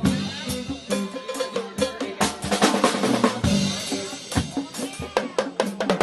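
Live band playing with the drum kit loudest: rapid snare, tom and bass-drum hits and cymbal crashes over bass and guitar notes.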